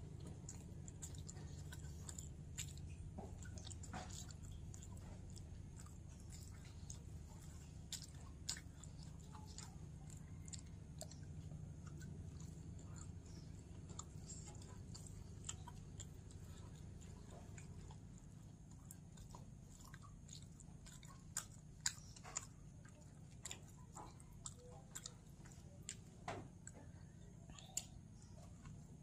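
A person chewing and biting food, with many small, sharp mouth clicks, more of them in the second half, over a steady low hum.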